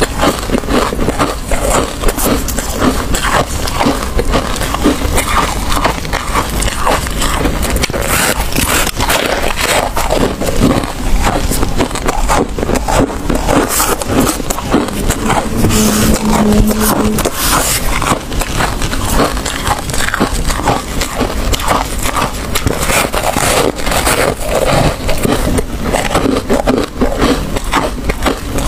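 Packed freezer frost scraped and crunched close to the microphone: a dense, continuous run of crackles and scratches.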